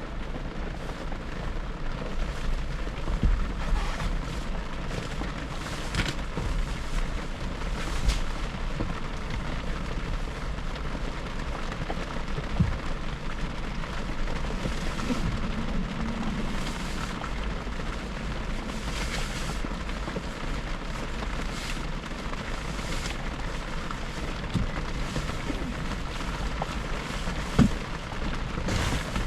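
Steady road noise of a car cruising on a highway: a deep tyre-and-engine rumble under a constant hiss, with brief whooshes every few seconds.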